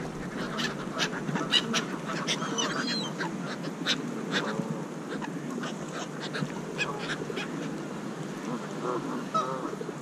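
Canada geese honking in short repeated calls over a crowd of feeding birds, with many short sharp clicks and taps scattered throughout.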